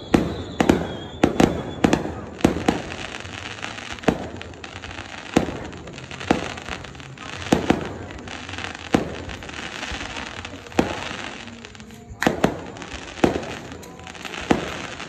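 Aerial firework shells bursting in an irregular string of sharp bangs, packed close together at first and then about one a second. Between the bangs there is a steady crackling hiss from the glittering crackle stars.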